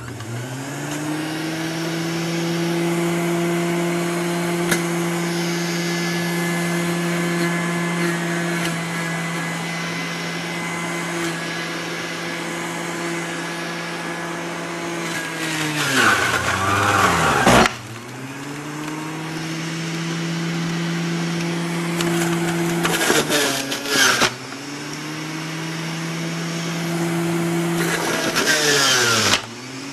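Omega pulp-ejection juicer's electric motor spinning up when switched on, then running with a steady hum. Three times it bogs down sharply in pitch with a rough shredding noise as produce is pushed down the feed chute, the first time for about two seconds, then speeds back up.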